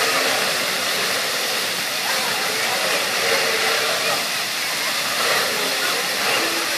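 Water fountain splashing: a steady, even rush of falling water.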